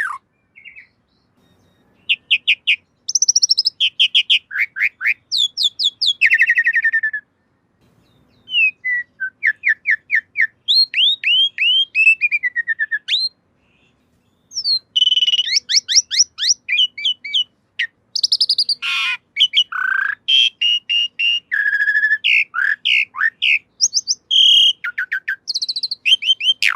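Asian pied starling (jalak suren) singing: quick runs of repeated whistled notes and fast rising and falling sweeps, broken by brief pauses about a second in, around eight seconds and around fourteen seconds.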